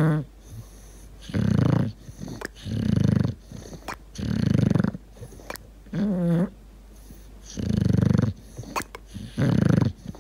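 Dog snoring loudly in deep sleep: about six rough, rattling snores, one every second and a half or so. One snore about six seconds in turns into a high, wavering squeak.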